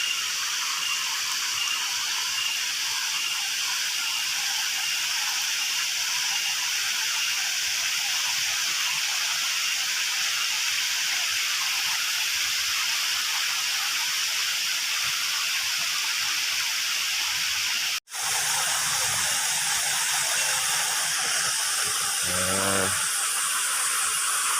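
Waterfall rushing: a steady hiss of falling water, broken by a split-second gap about eighteen seconds in.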